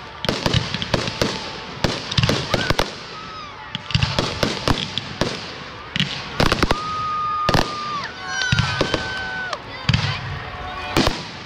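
Fireworks display: rapid, irregular bangs and crackling bursts. A little over halfway through come two held whistling tones of about a second each.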